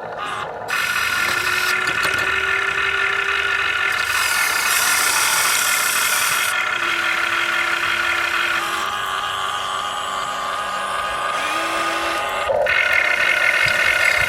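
Machinery running with a steady high whine made of several tones, which cuts abruptly to a slightly different whine several times.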